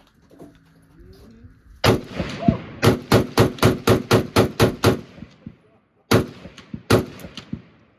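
Gunfire at a shooting range. A single shot comes about two seconds in, then a rapid, evenly spaced string of about nine shots at roughly four a second, then two more single shots near the end, each shot ringing on afterwards.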